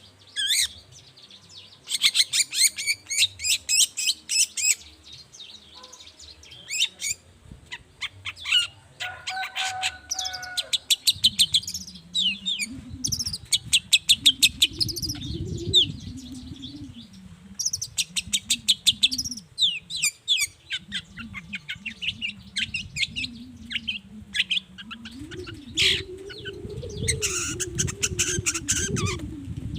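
Long-tailed shrike (cendet) singing: runs of rapid, high chattering notes in quick bursts with short pauses between, and a few lower whistled notes. A low wavering drone runs underneath from about a third of the way in.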